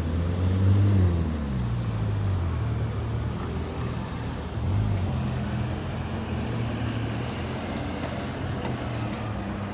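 Orion V diesel transit bus engine running, its pitch rising and then falling in the first second or so, loudest about a second in, then running steadily with road traffic noise.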